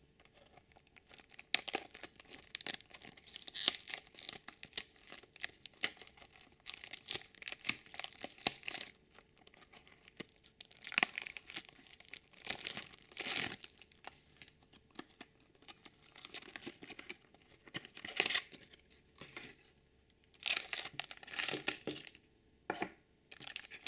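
A toy blind basket and the small blind bags inside it being opened by hand: packaging crinkling and tearing in irregular spells of crackle with short pauses.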